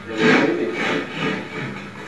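Old wooden drawer scraping and rubbing against its wooden frame as it is worked out of a cabinet, loudest in the first second.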